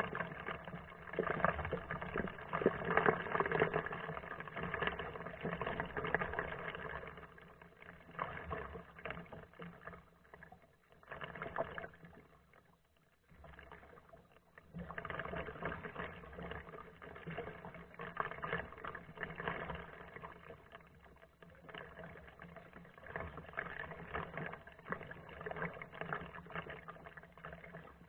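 Kayak paddle strokes in the water, swishing and splashing as the blade dips and lifts, with a quieter lull about halfway through.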